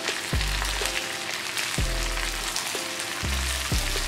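Background music with held notes, a low bass line and a few beats, over the hiss of chilies and tomatoes frying in oil in a wok.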